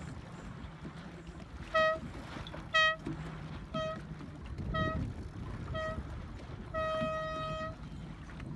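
Race committee horn counting down to a sailing race start: five short blasts about a second apart, then one longer blast, the starting signal.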